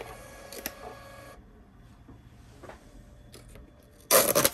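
Small receipt printer of a TYMC MTG-9900A timegrapher printing a test-results slip: a steady machine whir lasting about a second and a half. Near the end comes a short, loud rasp as the paper slip is torn off the printer.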